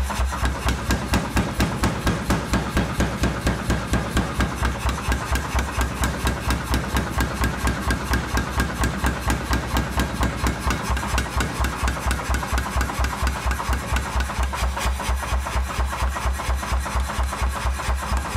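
Mechanical power hammer pounding a red-hot steel knife blank on its anvil in a steady, rapid rhythm of about five blows a second, drawing out the blade.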